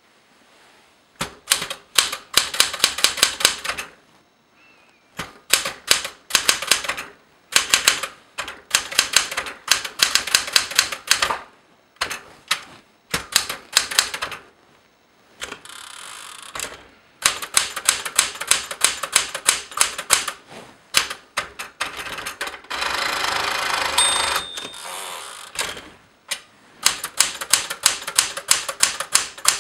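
Smith Corona Galaxie Twelve manual typewriter being typed on: bursts of sharp, quick key strikes, several a second, with short pauses between them. About two-thirds through comes a longer steady rattle with a brief ring in it.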